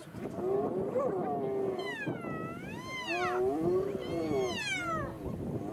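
Spotted hyenas calling: drawn-out, wavering cries that rise and fall in pitch. Twice a high squeal soars above lower moaning calls.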